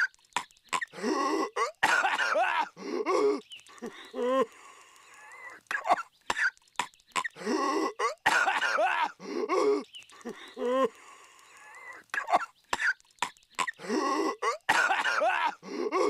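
A cartoon character's violent coughing fit, the same run of coughs looping about every seven seconds.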